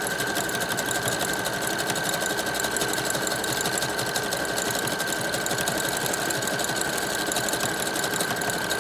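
Brother electric sewing machine running at a steady speed, stitching through hair wefts under an open (zipper) presser foot: a steady high motor whine over a rapid, even needle clatter.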